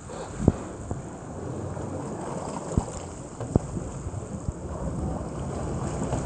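Rafting paddles stroking and splashing in calm water beside an inflatable raft, over a steady rush of noise with wind on the microphone. Three sharp knocks stand out, about half a second in, near the three-second mark and just after.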